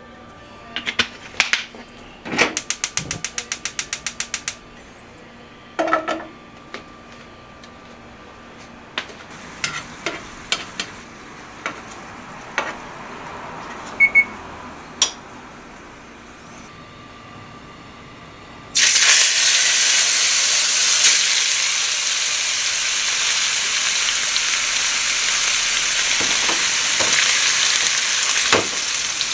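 A fast run of clicks from a gas burner's igniter for about two seconds near the start, then faint ticking and crackling of garlic in warming oil. About two-thirds of the way through, a marbled beef steak laid into the hot oil sets off a sudden loud, steady sizzle that carries on to the end.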